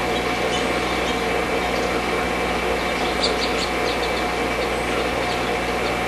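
A steady mechanical hum with several fixed tones in it. Faint, short, high chirps of small birds come through, with a quick run of them about three seconds in.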